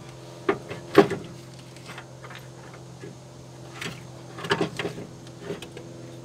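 Jeep Cherokee XJ alternator knocking and scraping against its metal mounting bracket as it is wiggled out of a tight fit. The loudest clunk comes about a second in and a cluster of knocks follows around four and a half seconds, over a steady low hum.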